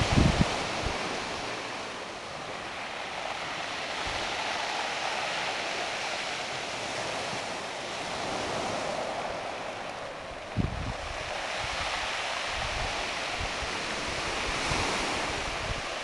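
Surf washing in on a beach of round cobbles, a steady hiss that swells and eases every few seconds. Gusts of wind buffet the microphone with low thumps at the start and about two-thirds of the way through.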